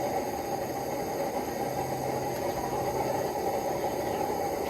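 A forge burner running with a steady roar-like noise while metal heats inside; no hammer strikes.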